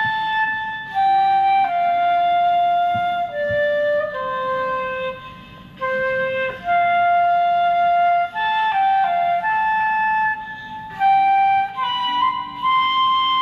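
Flute playing a slow melody of long held notes, gliding from note to note.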